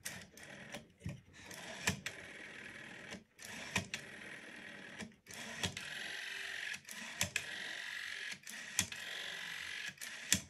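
Rotary dial of a 500 series telephone being wound round and released again and again, about every one and a half seconds; each return is a steady whirr from the governor that ends in a click. The dial has just been given a touch of 3-in-1 oil and sounds beautiful.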